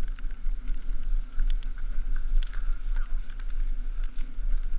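Wind buffeting the microphone of a helmet camera on a mountain bike descent, a heavy fluttering rumble, with scattered sharp clicks and rattles from the bike on rough trail.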